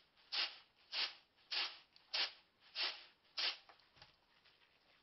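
Grain being tossed in a woven winnowing basket: six rhythmic swishing strokes, a little under two a second, that stop about three and a half seconds in, followed by faint rustling as the basket is set down.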